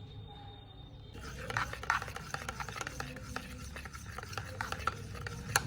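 A utensil scraping and clicking quickly and irregularly in a small container, as when stirring or mixing, starting about a second in and ending with a sharp knock.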